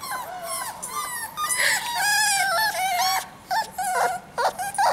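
Six-week-old puppies whining: a string of high, wavering cries with short breaks between them.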